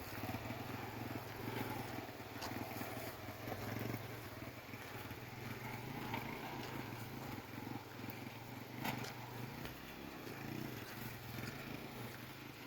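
Motorcycle engine running steadily with a low, fluttering sound.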